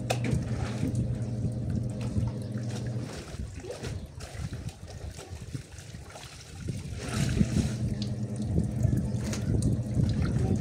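Water splashing and trickling as wet laundry is rinsed and worked by hand in a concrete washing sink, in irregular bursts that grow quieter for a few seconds mid-way. A low steady hum runs under it and stops about three seconds in.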